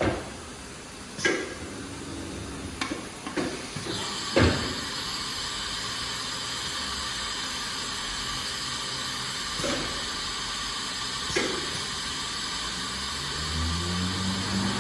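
1997 Motionmaster 5-axis CNC router running: several sharp mechanical clunks, then a steady hiss of air from about four seconds in, broken by a couple more clunks, with a motor tone rising in pitch near the end.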